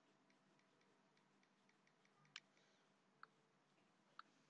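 Near silence with three faint, short clicks roughly a second apart, in the second half.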